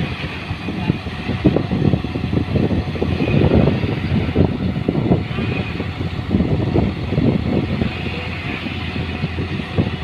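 Vehicle engine running, with an uneven low rumble.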